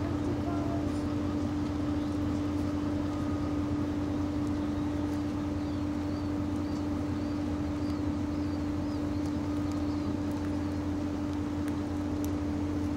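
An engine idling with a constant low hum, steady throughout, with a few faint high chirps in the middle.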